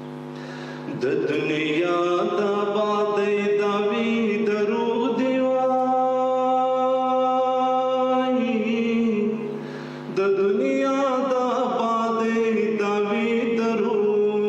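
A man singing a verse of poetry in a slow, drawn-out melodic style, holding one long note in the middle and pausing briefly about ten seconds in, over a steady low drone.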